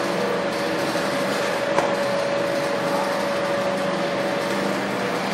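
Automatic egg collection conveyor of a layer chicken cage system running: a steady mechanical hum with a constant whine, and a single click just under two seconds in.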